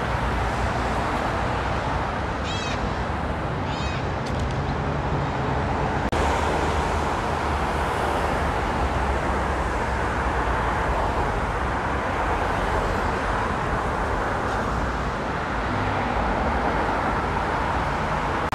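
Steady rumble of road traffic, with a bird giving two short runs of high chirps a few seconds in.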